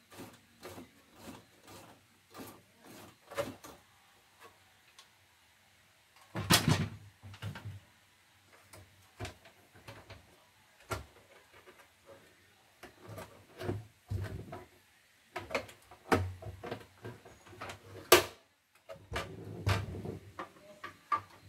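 Plastic casing and mechanism of a CNY portable embroidery machine being handled by hand during disassembly: scattered clicks, knocks and rattles, with a louder clatter about six seconds in and a sharp click near the end.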